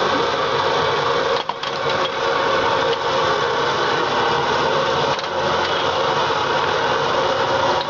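Gas stove burner running steadily at full flame under a saucepan of milk tea at a rolling boil.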